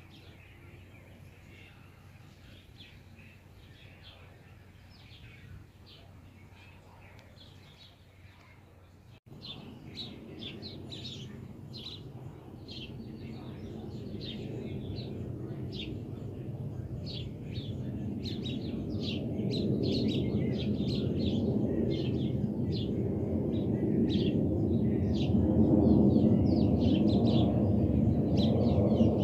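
Small birds chirping rapidly throughout. After a cut about nine seconds in, the jet engine noise of a four-engine Boeing 747-400 freighter flying overhead grows steadily louder.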